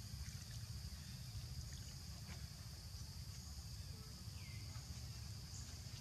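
Outdoor background noise: a steady high insect drone over a low rumble, with a few faint ticks and one short call about four and a half seconds in.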